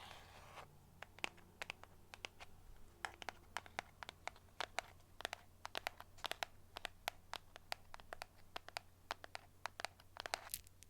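Fingernails tapping on a box: quick, irregular, crisp taps, several a second, with a short scratch near the end.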